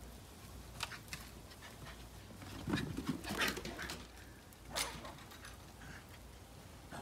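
Shiba Inu dogs whimpering briefly while playing in deep snow, with crunching steps in the snow around the middle.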